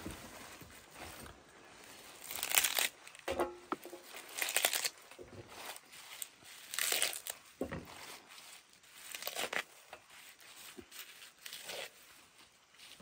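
Tearing and crinkling rustles in irregular bursts a second or two apart, the loudest about two and a half, four and a half and seven seconds in.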